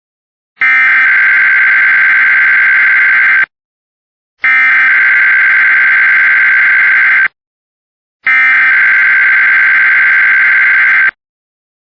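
Three bursts of Emergency Alert System SAME header data, the harsh buzzing digital warble of frequency-shift-keyed tones, each nearly three seconds long with about a second between them. They open a new required weekly test.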